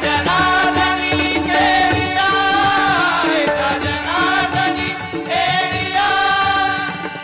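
Marathi devotional bhajan music: a wordless, gliding melodic line over a steady held drone, with regular drum strokes underneath.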